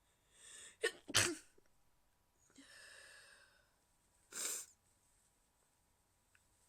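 A woman's stifled sneezes: a short pitched intake of breath, then two sharp, muffled sneeze bursts in quick succession about a second in. A breathy pitched exhale follows, and another short noisy burst comes about four and a half seconds in.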